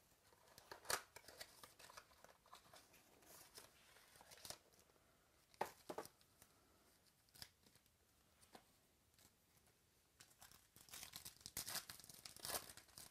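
Faint rustling and crinkling of foil trading-card pack wrappers being handled, with scattered light clicks. In the last couple of seconds it thickens into crinkling and tearing as a foil pack is ripped open.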